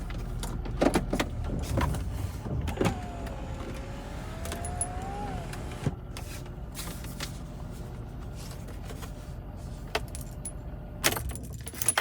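2018 Chevrolet Silverado engine idling with its newly replaced catalytic converters, with scattered clicks and a short squeak over it. The idle stops near the end, followed by a few sharp clicks like keys.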